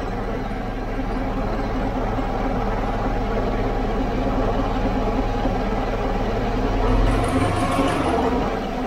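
2006 Subaru Impreza 2.5L flat-four idling in third gear with the wheels off the ground, the transmission, driveshaft and axles turning with a steady drone. Its whine is what the owners trace to a worn rearmost transmission bearing, where the driveshaft enters the transmission.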